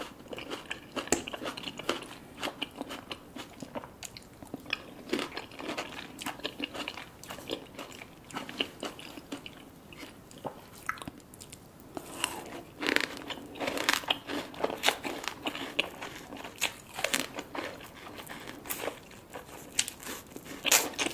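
Close-up chewing and biting of crunchy food: irregular crisp crunches and wet chewing clicks, with a louder run of bites in the second half.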